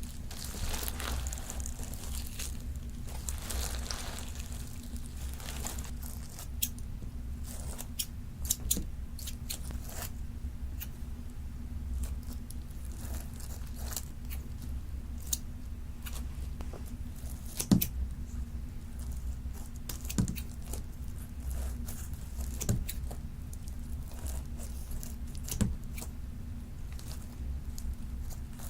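Glossy slime mixed with foam beads being squished and pressed by hand, giving irregular crunchy crackles and pops, with the sharpest snap about two-thirds of the way through. A steady low hum runs underneath.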